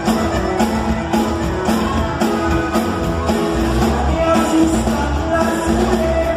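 Live norteño band playing: a button accordion carries the melody in held notes over a steady drum beat.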